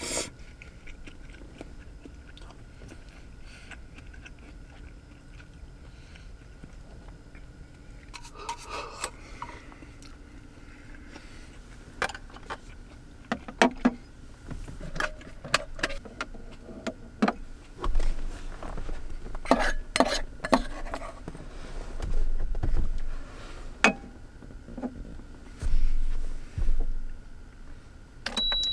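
Scattered clicks, taps and knocks of objects being handled in a small enclosed space, with a few heavier low thumps in the second half, over a faint steady hum.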